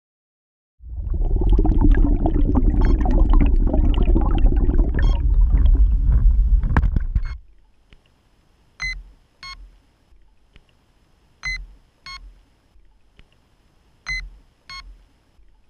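Loud, unpitched rumbling rush for about six seconds, which then stops. After it, an electronic beeper sounds in pairs of short beeps, repeating every two and a half seconds or so, like a quadcopter's lost-model buzzer or ESC beacon on a grounded quad.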